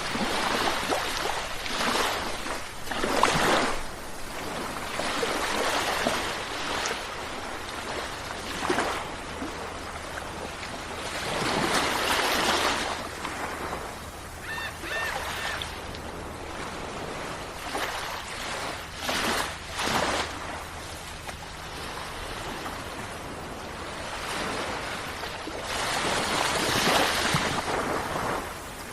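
Sea waves breaking and washing on the shore in irregular surges that swell and fall back every few seconds. Three short high chirps come about halfway through.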